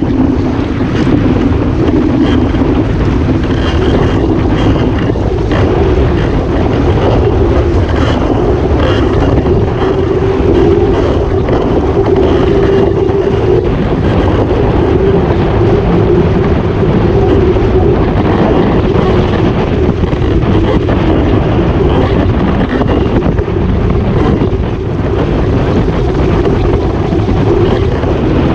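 Heavy wind buffeting the microphone of a camera mounted on a Waszp foiling dinghy under sail, with water spray rushing past. A steady, wavering hum runs underneath.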